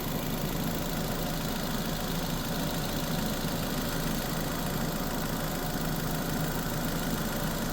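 2006 Nissan Sentra's 1.8 L inline-four engine idling steadily at operating temperature, with the coolant cap off while air is burped out of the cooling system after a water pump replacement.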